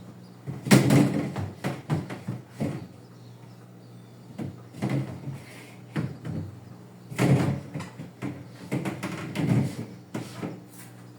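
Knocks and clatter of refrigerator parts and containers being handled and set down, in irregular bursts, the loudest about a second in and again around seven seconds.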